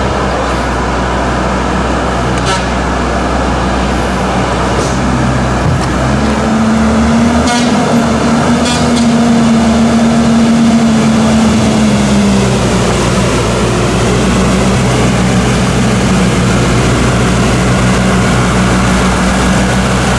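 Off-road vehicle engine running steadily, its revs rising for about six seconds in the middle and then dropping back, as when the vehicle is driven through a muddy rut.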